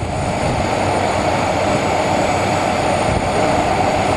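Boeing 767-400ER's twin turbofan engines at takeoff power, a steady loud jet rush with a strong mid-range band and a thin high whine above it.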